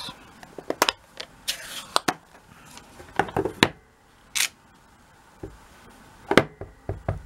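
Scattered plastic clicks, taps and brief rustles as a Stampin' Up ink pad is handled and opened and a clear acrylic stamp block is pressed onto it. A sharp click about six and a half seconds in is the loudest.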